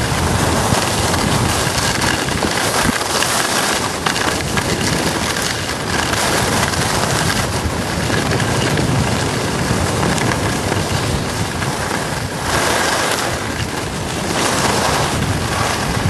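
Wind rushing over the camera's microphone during a downhill ski run, mixed with skis hissing and scraping on the snow. The noise is loud and steady, swelling and easing a few times.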